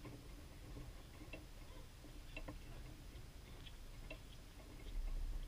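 Faint, scattered clicks of a tennis ball being struck and bouncing on a hard court. A low wind rumble on the microphone swells briefly near the end.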